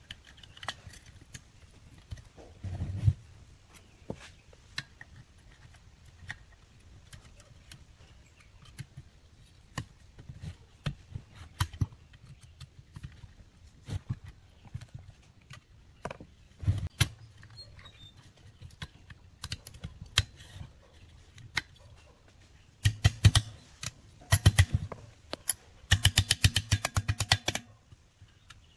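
Metal clicks and clinks of a screwdriver and small parts being worked on a chainsaw's housing during hand reassembly. Near the end come two runs of fast, rapid clicking.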